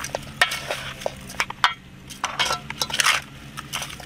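Chopped chicken being tossed in marinade in a metal bowl with a metal spoon and wooden chopsticks: irregular scrapes and clinks of the spoon against the bowl as the meat is turned.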